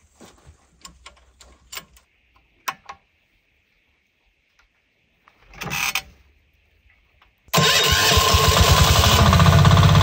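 A few light clicks from the handlebar controls of a walk-behind tractor. About seven and a half seconds in, its single-cylinder engine starts abruptly and runs loudly with a steady, even chug.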